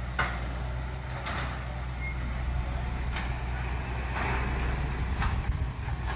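Heavy diesel engine running steadily, with a few short knocks and a brief hiss partway through.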